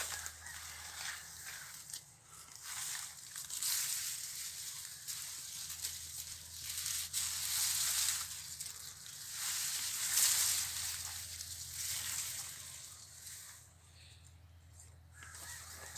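Rustling and crunching of dry leaves and brush, swelling and fading in waves, as of someone pushing through vegetation on foot.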